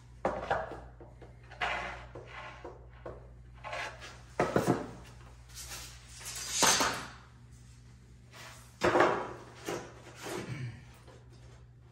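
Plywood and tools being handled on a plywood sheet over a concrete floor: a string of separate knocks and clatters, with a longer scrape about six and a half seconds in. A steady low hum runs underneath.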